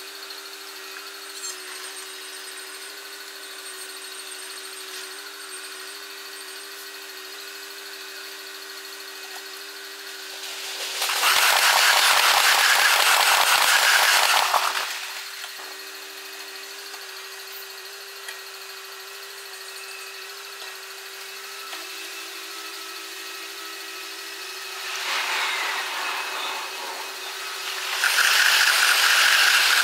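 Six-times sped-up trackside sound of passing JR commuter electric trains: a steady buzzing hum, broken by a loud rushing burst of a few seconds as a train goes by about eleven seconds in, a weaker swell later, and another loud rush beginning near the end as the next train passes.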